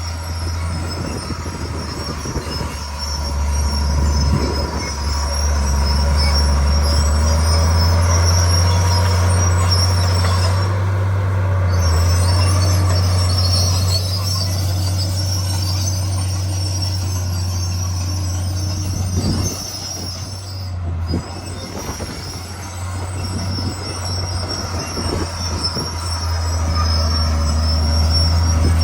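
Komatsu D41 crawler bulldozer working, its diesel engine running with a steady low drone under a high metallic squeal from the running gear. It grows louder a few seconds in and eases for a few seconds past the middle.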